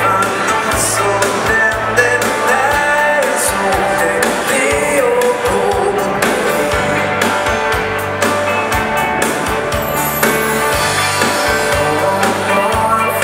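Live dance band playing a foxtrot, a singer over a steady beat.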